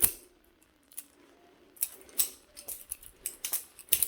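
Cheap Chinese-made balisong (butterfly knife) being flipped: its metal handles clack against each other and the blade, giving several sharp clicks at an uneven rhythm, the loudest at the very start and just before the end.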